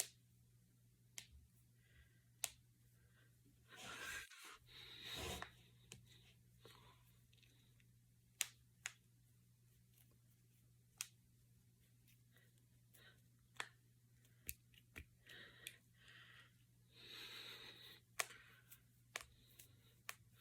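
Finger joints and knuckles cracking: about a dozen sharp single pops at irregular intervals, with a couple of soft rustles of the hands moving between them.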